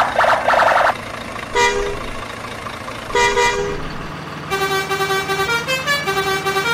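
Vehicle horn sound effects. A rapid pulsing blare in the first second is followed by two short toots about a second and a half apart. From about two-thirds of the way in comes a string of horn notes stepping up and down in pitch like a tune.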